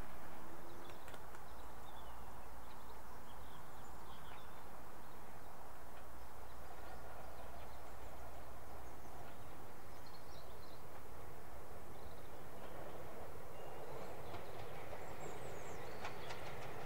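LMS Stanier 8F steam locomotive approaching with a passenger train, its running growing louder toward the end. Birds chirp faintly.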